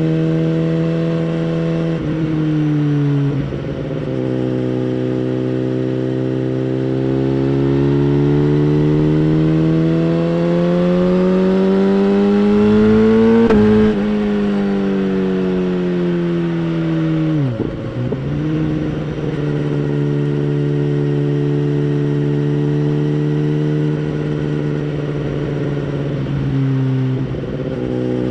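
2011 BMW S1000RR's inline-four engine through a Bodis exhaust while riding: the revs step down about two seconds in, then climb slowly in a long pull until about halfway, where they drop sharply and keep falling. After a brief dip the engine holds a steady pitch, and the revs step down again near the end.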